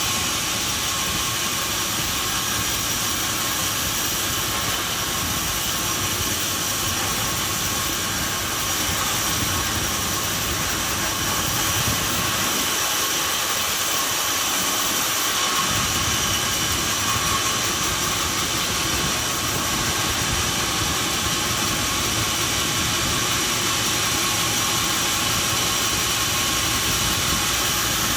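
Sawmill machinery running with a steady, loud mechanical noise and hum. The deep low end drops away for a few seconds about halfway through, then returns.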